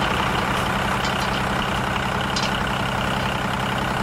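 Heavy vehicle engine idling steadily, with a few light ticks over it.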